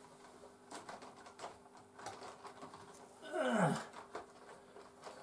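Light clicks and taps of model railway rolling stock being handled and re-railed on the track after a derailment. About three and a half seconds in comes the loudest sound, short and falling steeply in pitch.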